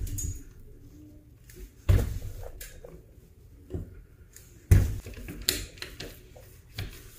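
Pliers clicking and knocking against electrical wires and metal conduit at a junction box: a series of sharp knocks and clicks, the loudest about two seconds in and twice close together near five seconds.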